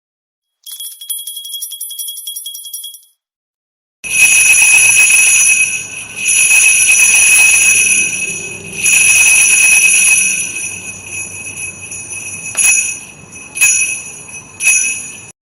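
Jingle bells shaken: a short, quieter jingling for about two and a half seconds, then after a brief pause a louder set of bells shaken in three long swells, followed by softer shakes with a few sharp jingles near the end.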